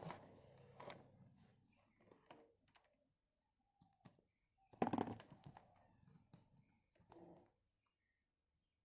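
Faint clicks and rustling of hands handling multimeter probe leads and a 9-volt battery, pressing the probe tips to the battery terminals. The loudest burst of handling comes about five seconds in, with a smaller one about two seconds later.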